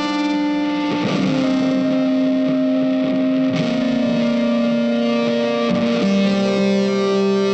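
Music: a distorted electric guitar holding long sustained notes, moving to a new note about every two seconds.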